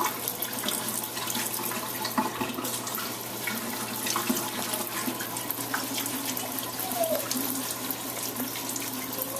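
Water running steadily from a tap, with a few small knocks and splashes.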